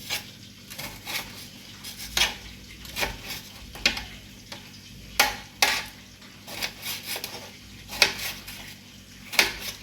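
Knife cutting up tomatoes on a cutting board: sharp, irregular taps of the blade against the board, about one or two a second.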